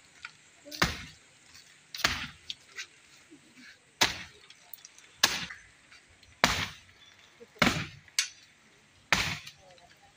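Axe chopping into the green trunk of a peach tree: about seven sharp blows, one every second or so.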